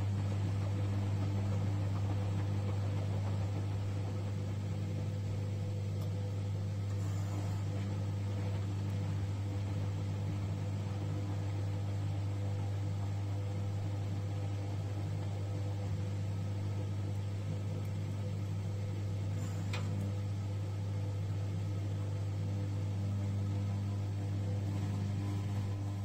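1994 Bompani BO27027 front-loading washer dryer running mid-wash, its drum turning wet laundry, with a steady low mechanical hum. A faint click comes about 19 seconds in.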